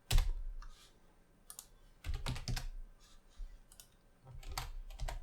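Computer keyboard keys being typed in several short clusters of clicks with brief pauses between them.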